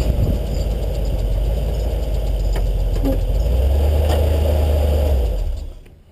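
Off-road 4x4 truck engine running with a loud, low rumble. It swells briefly about three and a half seconds in, then falls away sharply near the end.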